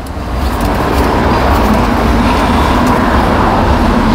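Steady rumbling vehicle noise that swells in over the first second and then holds level.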